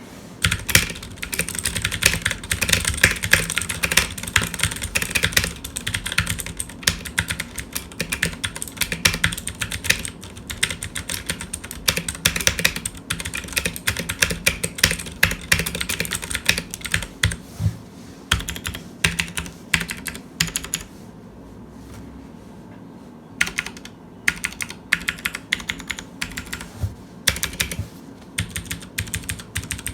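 Ducky One 2 Mini mechanical keyboard with Cherry MX Blue switches being typed on fast: a dense run of clicky keystrokes. The typing stops for about two seconds about two-thirds of the way through, then starts again.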